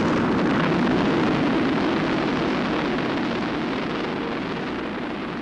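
Research rocket's motor at liftoff: a loud, steady rush of exhaust noise that slowly fades as the rocket climbs away.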